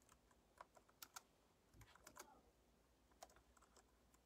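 Faint, scattered computer keyboard clicks, single keystrokes and a short cluster of them, against near silence.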